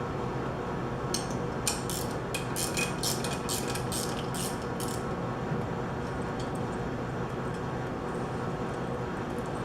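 A quick run of light metallic clinks and clicks, about a dozen over four seconds, from wrenches, bolts and pump parts being handled during disassembly, over a steady hum that continues throughout.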